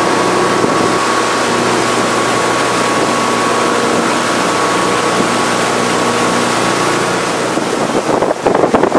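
Motorboat engine running steadily at speed, with rushing water and wind. Near the end, wind buffets the microphone in gusts.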